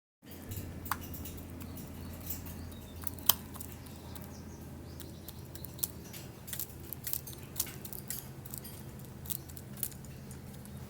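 A hen pecking at birdseed: irregular sharp taps and clicks, a few at a time, the loudest about three seconds in, over a steady low hum.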